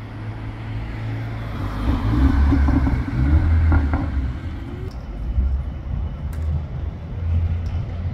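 City street traffic: a steady low rumble that swells as a car passes close, about two to four seconds in.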